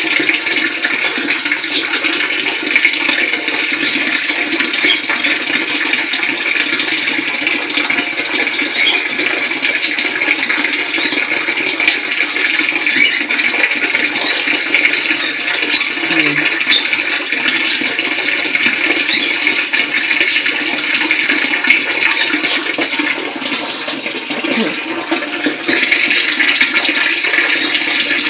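Water pouring steadily from a tap in a thin stream, splashing into a tiled tank full of water.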